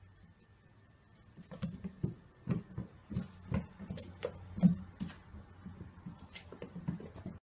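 A kitten scampering after a small ball on a wooden floor: irregular taps, patters and knocks of paws and ball on the boards, starting about a second and a half in, over a low steady hum.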